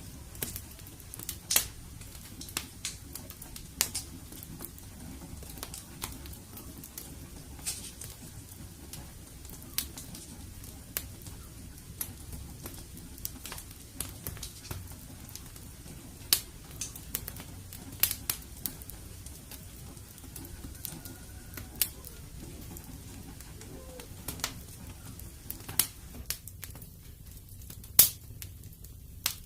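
Wood fire in a fireplace crackling, with irregular sharp pops and snaps over a steady low rumble of the flames. The loudest pop comes near the end.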